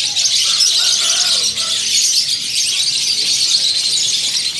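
A dense chorus of many caged small birds chirping together.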